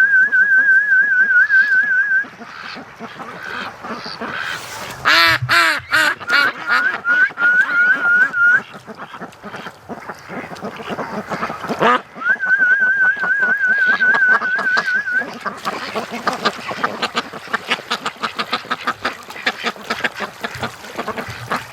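A warbling duck-calling whistle, given three times, over a flock of ducks quacking repeatedly, with a loud burst of quacking about five seconds in.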